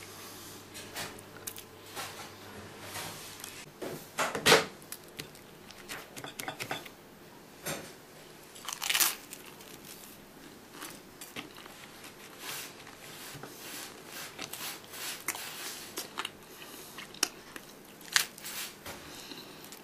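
Close-up crunching and chewing of toast dipped in a soft-boiled egg, as irregular small clicks with a few louder crunches about four and a half, nine and eighteen seconds in.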